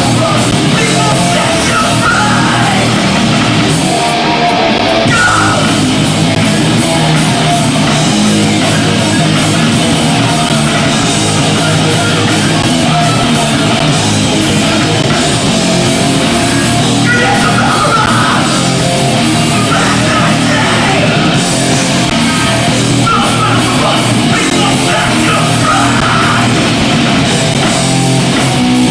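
Hardcore punk band playing live: loud, dense distorted guitars and drums.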